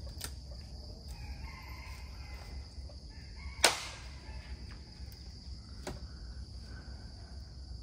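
A rooster crowing faintly, over a steady high hum. Two sharp clicks cut through, the louder one about three and a half seconds in.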